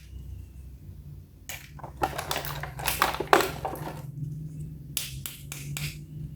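Plastic toy and its packaging handled by hand: scattered clicks, taps and crinkles, over a faint steady low hum.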